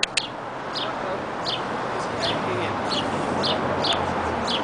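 A small bird chirping over and over, short high chirps about one and a half a second, over a steady background hiss.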